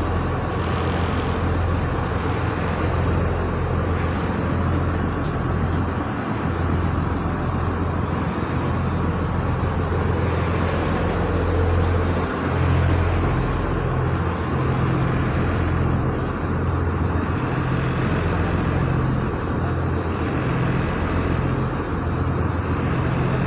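Excavator's diesel engine running steadily: a continuous low drone with a deep hum.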